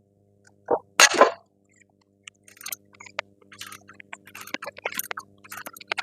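Socket wrench worked in short irregular strokes on a large lower strut bolt, clicking and clinking metal on metal, after a sharp noisy burst about a second in.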